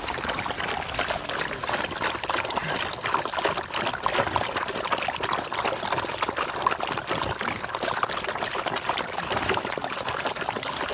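A pack of beagles lapping water from a shallow pool, their overlapping laps making a continuous wet patter.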